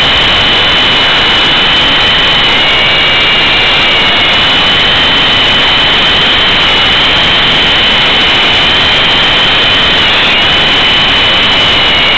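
E-sky Big Lama coaxial electric RC helicopter in flight, heard from a camera mounted on board: a steady high motor whine over loud rotor wash and wind rush. The whine wavers slightly and dips briefly about ten seconds in.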